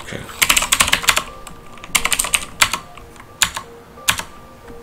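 Computer keyboard typing: a quick run of keystrokes about half a second in, then a few single keys and short runs spread over the next few seconds.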